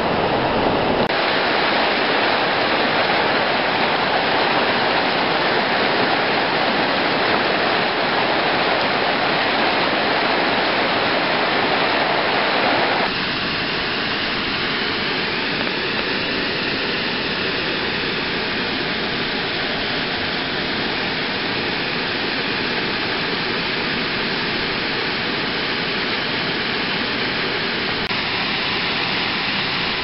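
Mountain stream water rushing steadily over rocks, changing abruptly in tone about a second in and again a little before halfway, where one stretch of running water gives way to another.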